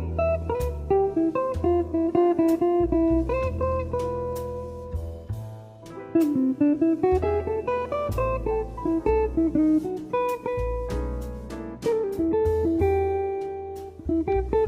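Background music: a plucked guitar melody over a steady bass line, the notes struck in quick succession.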